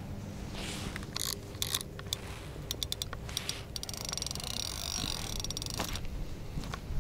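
Handling of ice-fishing gear: scattered clicks and scrapes, then about two seconds of fast, fine mechanical ticking like a fishing reel being wound.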